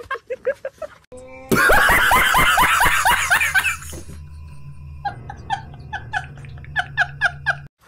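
A man laughing hard: a loud, dense burst of laughter, then a rapid run of short, even 'ha' pulses, over a low steady hum.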